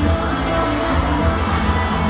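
Pop song backing music with a steady beat of cymbal ticks, played over a stage sound system.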